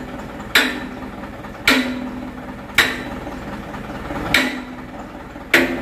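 A hammer striking metal: five sharp blows about a second apart, each leaving a short ringing tone.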